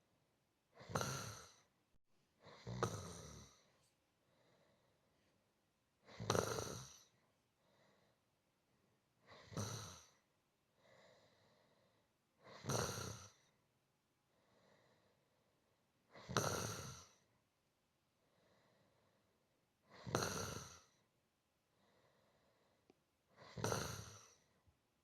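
A person snoring softly and rhythmically: eight snores, mostly three to four seconds apart, each followed by a quieter breath before the next.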